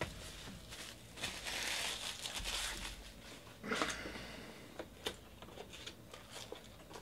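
Plastic shrink-wrap crinkling and being crumpled by hand, loudest from about one to three seconds in, with a sharper rustle near four seconds. Light taps and scrapes of a cardboard trading-card box being handled and its lid opened.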